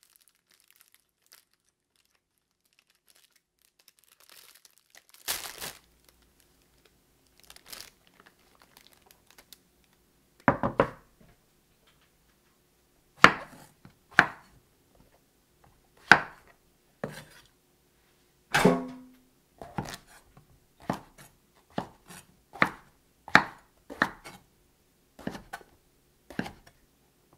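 Short, sharp knocks of kitchen work, a few spread out at first, then about one a second through the second half.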